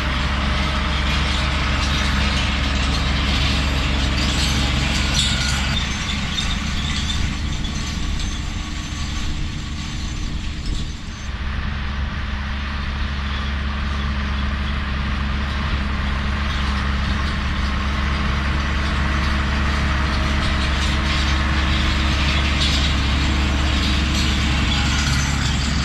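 JCB Fastrac 1125 tractor running steadily while pulling harrows across a rough field, a constant low engine drone with mechanical rattle over it. It eases a little for a few seconds about a third of the way in, then carries on.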